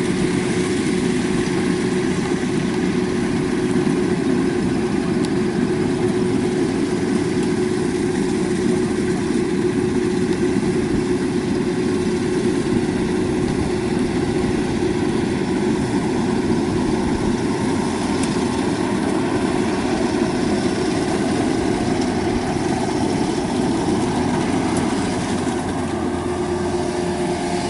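Kubota DC-93 combine harvester running steadily at working speed while cutting rice, its diesel engine and threshing machinery giving a constant drone with a steady tone.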